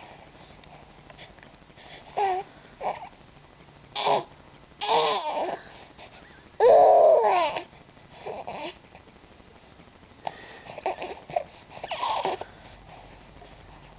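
Young infant cooing and babbling: a string of short vocal sounds that slide up and down in pitch, separated by pauses, the loudest about seven seconds in.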